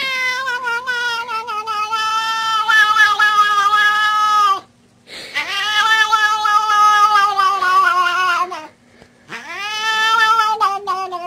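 Cat yowling in three long, drawn-out calls, each sliding down in pitch as it ends.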